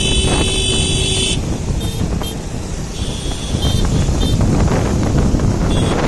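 Wind buffeting and motorcycle engine noise at highway speed, with a vehicle horn held until about a second and a half in, followed by several short high beeps.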